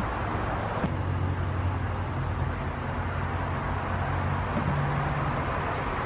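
A steady low hum over an even hiss, with one sharp click about a second in.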